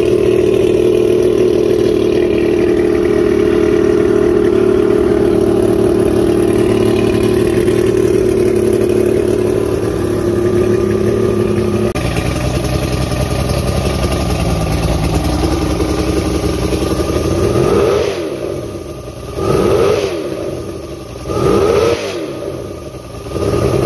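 Mercury 115 inline-six two-stroke outboard running fast and steady, then at lower revs. Near the end the revs drop and pick back up three times as the throttle is worked.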